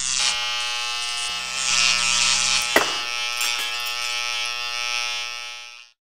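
A steady buzzing drone, thick with overtones, with a sharp click a little under three seconds in, fading out just before the end.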